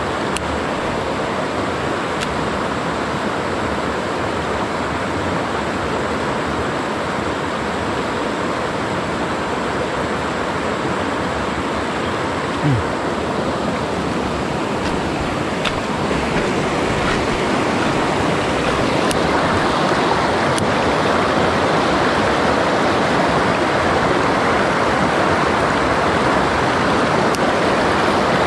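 Shallow mountain river rushing over rocks in rapids: a steady wash of water that grows a little louder about two-thirds of the way through.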